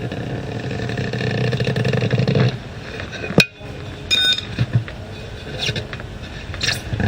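A motor runs steadily, growing slightly louder, then stops about two and a half seconds in; a sharp click follows, then a few light metallic clinks.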